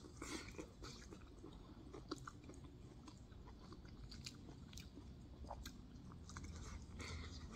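A person chewing a steamed pork momo: faint, scattered wet mouth clicks and smacks, busiest just at the start and again near the end.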